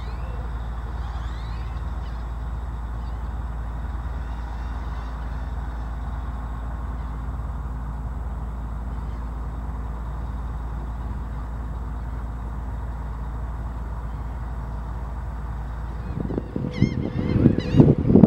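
Steady low rumble with a few faint bird chirps. Two seconds before the end, birds break into loud honking calls, several in quick succession.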